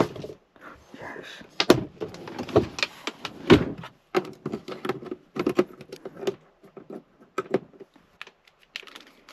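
Handling noises: a run of irregular knocks, clicks and rustles as things are moved about, a cardboard box among them, and a cable is plugged into a dashboard outlet. The sounds thin out toward the end.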